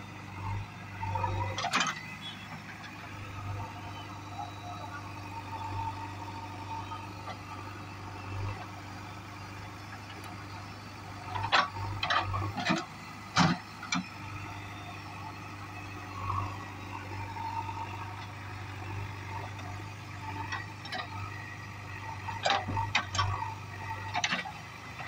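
JCB backhoe loader's diesel engine running with a steady low drone while it loads mud. Clusters of sharp knocks and clanks come about every ten seconds as the bucket swings over and dumps its load into the trailer.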